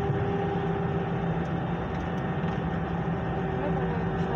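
Steady drone inside an airliner cabin: a constant hum with a few unchanging tones.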